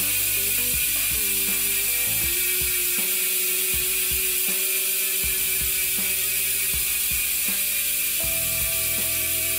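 ARC MT009 mountain-bike rear hub freewheeling: the freehub pawls ratchet in a steady, high-pitched buzz.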